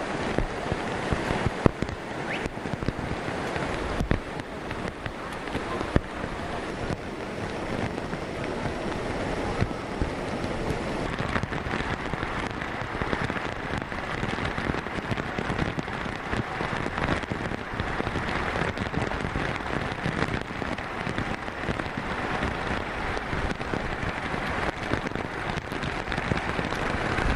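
Swift, churning floodwater rushing past in a steady, unbroken torrent, with a few sharp knocks in the first few seconds.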